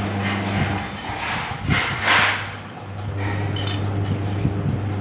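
A small stainless steel bowl knocked and scraped against the floor, with a few metallic clinks, the loudest knock about two seconds in. A steady low hum runs underneath.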